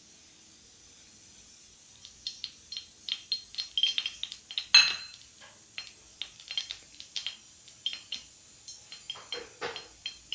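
A kadhai with oil heating in it on a gas flame, giving irregular sharp metallic ticks and clinks, several a second, with one louder clink about five seconds in.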